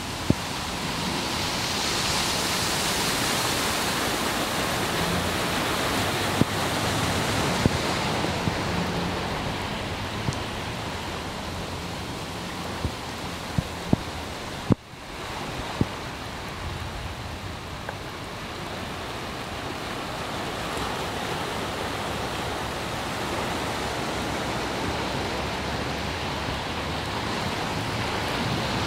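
Steady rush of heavy rain and running floodwater, with a few sharp clicks scattered through it. The sound breaks off abruptly about halfway through, then resumes.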